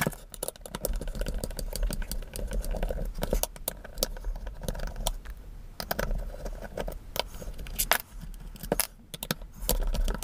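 Irregular light clicks and rattles of a screwdriver and the plastic drill housing being handled as the screws at the front of a Buildskill Pro drill are removed.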